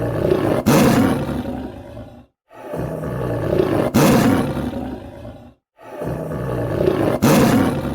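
Tiger roaring: three near-identical low, rough roars about three seconds apart, each building to a loud peak partway through and then trailing off.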